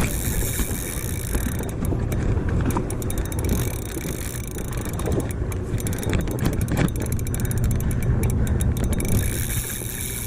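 Steady low hum of a sportfishing boat's machinery, with wind and water noise on deck and a few faint clicks.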